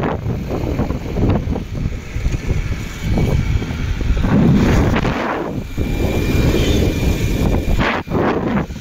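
Wind rushing and buffeting the phone microphone on a moving motorbike, with the bike's running and road noise underneath; the rumble swells and dips unevenly.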